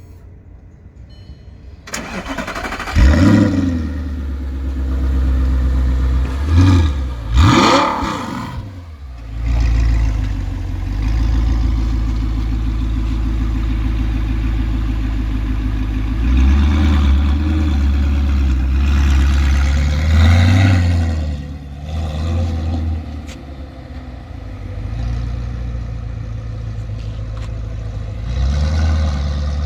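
Audi R8 engine starting about two seconds in with a flare of revs, then three sharp throttle blips in quick succession before settling to a steady idle. A few milder rises in revs follow later on.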